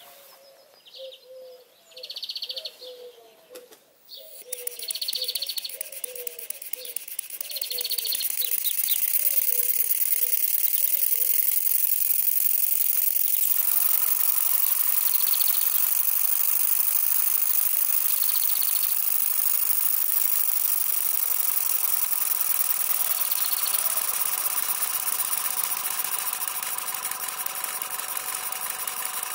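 Stuart 10V single-cylinder double-acting model steam engine running on compressed air. It starts about four seconds in and picks up speed over the next few seconds to a steady, fast tick-over with a hiss of exhausting air.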